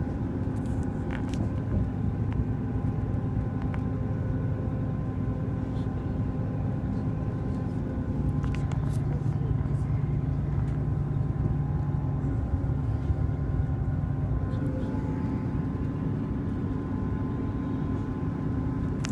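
Steady running rumble of a diesel passenger train heard from inside the carriage, its low engine note shifting a couple of times, with a few faint ticks.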